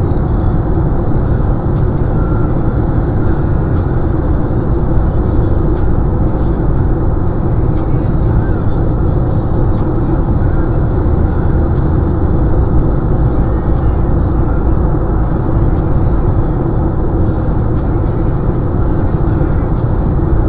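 Steady cabin noise of a car cruising at highway speed: tyre and road rumble with a low drone, heard from inside the car.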